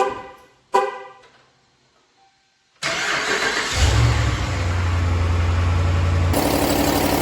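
A RAM 1500's 5.7 HEMI V8 cranks and starts about three seconds in, then idles steadily. The engine is presented for the ticking that could come from an exhaust manifold leak or a broken manifold bolt.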